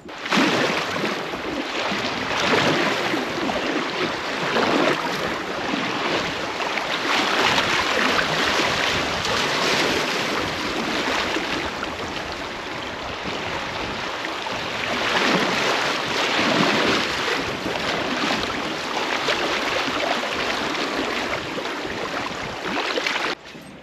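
Creek water rushing through a shallow riffle and splashing against a kayak's hull, a loud, steady wash that swells and eases.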